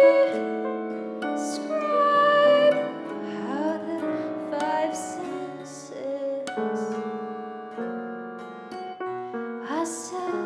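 Experimental chamber music: layered sustained notes on piano and keyboard, with a few sliding pitches and now and then brief high hissing sounds.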